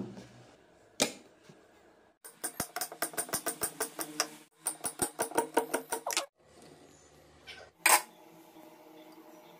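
Knife slicing an onion on a stone countertop: quick sharp taps, about six a second, in two runs with a short pause between. A single loud knock follows near the end.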